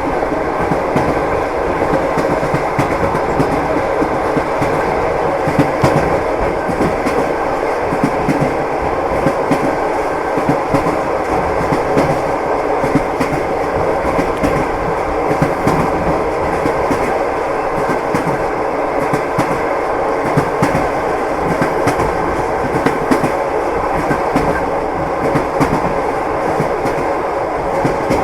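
Train wheels clacking over the rail joints as the train runs at steady speed, over a continuous rumble, with frequent sharp clicks throughout.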